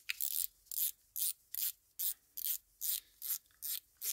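Hand work on a Shimano Katana 4000 HG spinning reel around its handle: about ten short, hissy rubbing strokes, a little over two a second.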